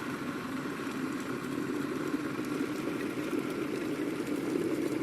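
Electric kettle heating water toward the boil: a steady rumbling hiss that grows slightly louder.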